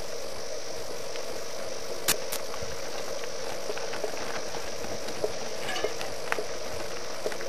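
Steady hiss with scattered sharp clicks and ticks as a mountain bike rolls past on a loose stony track. The two loudest clicks come about two seconds in, and smaller ticks follow while the bike is close.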